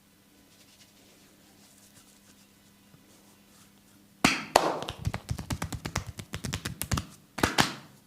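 Massage percussion: after a few quiet seconds, hands strike the body in a quick run of sharp slaps and taps, about five or six a second, ending with two louder slaps.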